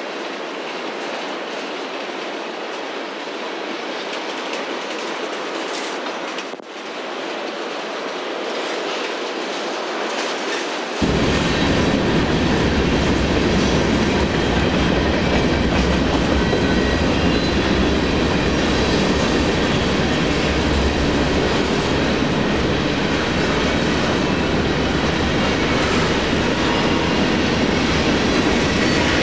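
Union Pacific manifest freight train's cars rolling past, wheels clicking over the rail joints. About eleven seconds in, the sound abruptly gets louder, with much more low rumble.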